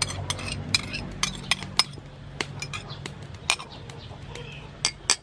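A metal spoon clinking and scraping against a small ceramic bowl as oyster sauce is scraped out of it: a string of sharp, irregular clinks.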